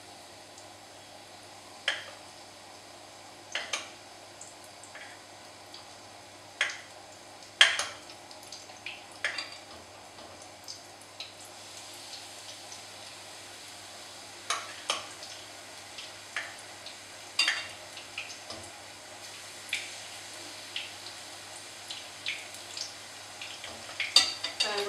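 Batter-coated apricots frying in hot oil in a pan, a steady sizzle, with scattered sharp clinks of a spoon against the pan and the batter bowl.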